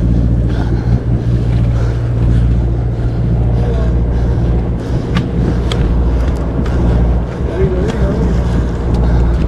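Steady low hum of the sportfishing boat's engine running, with a few sharp clicks about five and six seconds in.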